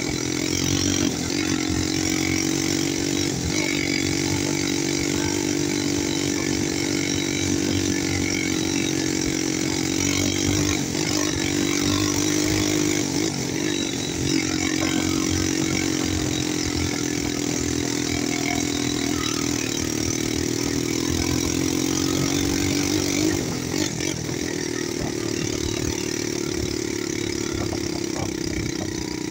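ATV engine running steadily under way, its buzzing pitch wavering slightly with the throttle. It eases off briefly about halfway through and again about five seconds before the end, running a little quieter after that.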